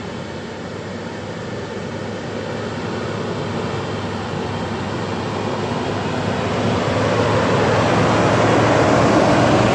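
Land Rover Defender's diesel engine running steadily as the vehicle drives along a rough forest track, growing gradually louder as it approaches and comes close.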